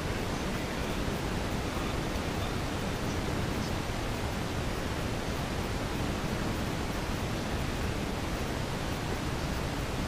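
Steady, even rushing noise spread across all pitches and heaviest in the low end, with no voices or music from the ceremony coming through: the GoPro's faulty sound recording.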